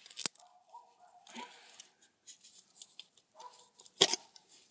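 Metal hand tools scraping and prying at a chunk of solidified aluminum stuck in a forge's metal screen, with a sharp clink just after the start and a louder one about four seconds in.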